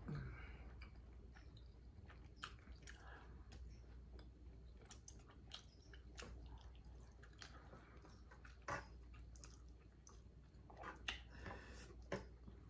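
A person chewing a jalapeño pepper: faint wet chewing and mouth clicks, with a few sharper clicks in the last few seconds.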